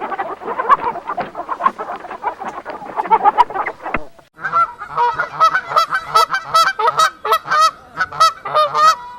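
A flock of domestic fowl calling, many overlapping calls at once. After a brief break about four seconds in, loud repeated calls follow at several a second.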